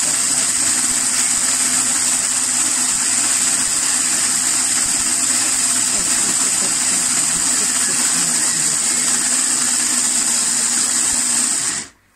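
A kitchen food processor's motor running steadily, whipping instant coffee, sugar and hot water into a thick dalgona foam. The motor cuts off suddenly near the end.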